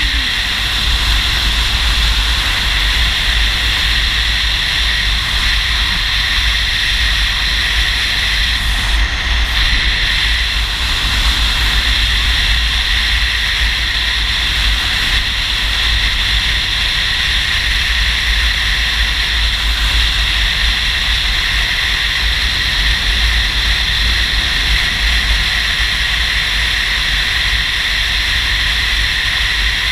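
Steady wind rush and low rumble of a touring motorcycle at road speed, heard from a mount behind its windscreen. It holds unchanged throughout, with no clear engine note standing out from the wind.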